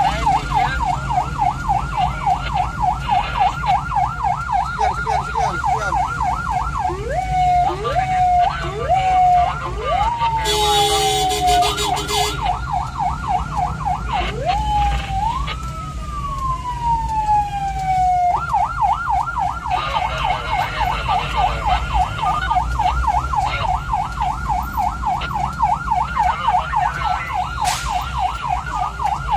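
Ambulance siren heard from inside the vehicle, running a fast yelp that rises and falls about five times a second. Twice it switches to a few slow rising whoops and a long falling wail before going back to the yelp, with a short harsh horn-like blast about ten seconds in. A steady low engine rumble lies underneath.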